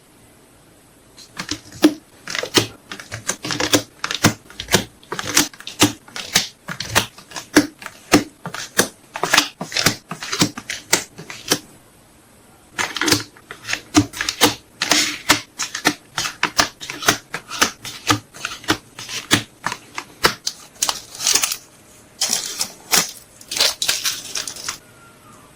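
Hands packing photocards and plastic packaging: quick, irregular crinkles and clicks in two long runs, with a short break about halfway through.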